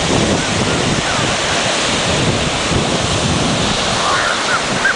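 Sea surf breaking on a sandy beach, a steady rushing wash, with gusty wind buffeting the microphone.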